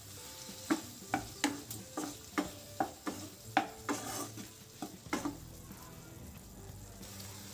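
Spatula stirring green chillies and tomatoes in a nonstick frying pan, a quick irregular run of knocks and scrapes against the pan over the sizzle of frying. The stirring stops about five seconds in, leaving only the steady sizzle.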